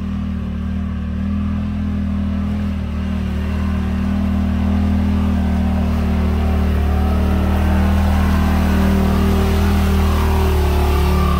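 Yamaha Wolverine RMAX 1000 side-by-side's engine pulling steadily as it climbs a steep rut on slick mud, drawing closer and growing louder, with a short rise in revs near the end.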